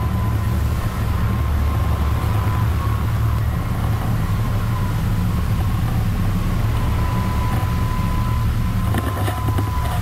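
Boat engines running at speed under load as a high-speed pilot launch drives through storm seas, a steady low drone with a thin whine above it. Near the end, water slaps and knocks against the hull and bow.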